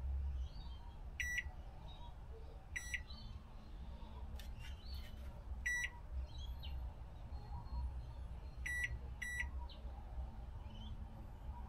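Microwave oven keypad beeping as its buttons are pressed: five short, high electronic beeps, the last two close together, with a few faint clicks in the middle.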